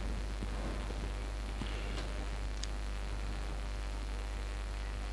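Room tone: a steady low hum with faint background hiss and a couple of small clicks about two seconds in.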